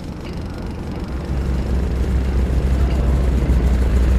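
Turboprop engines of an Aero Spacelines Super Guppy cargo plane droning low, growing louder from about a second in as the aircraft comes closer.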